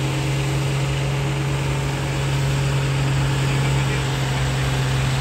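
Farm stock diesel tractor engine pulling a weight-transfer sled, running at a steady, unchanging pitch under load.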